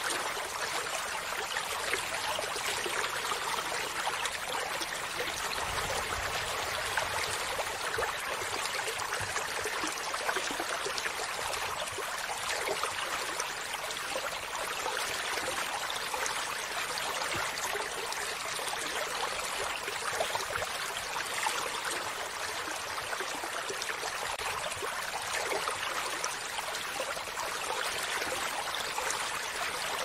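Shallow stream running over rocks, a steady, unbroken trickle of water over stones.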